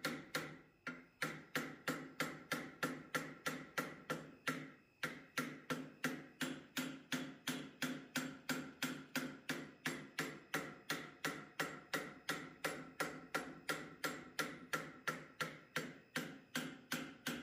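Steady hand-hammer blows on hot steel clamped in a vise, about three a second, each with a short metallic ring. There are two brief pauses, about a second in and near five seconds. This is the forging of a one-piece steel turtle's shell.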